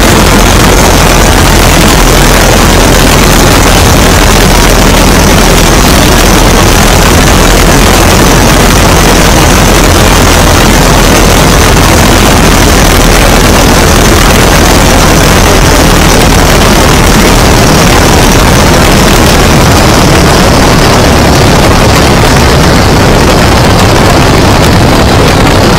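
Great Lakes biplane's engine and propeller in flight, buried in heavy wind rush on the airframe-mounted microphone, loud and steady on the approach. After about twenty seconds the high hiss eases and the engine note changes as the plane comes down low over the runway for a touch-and-go.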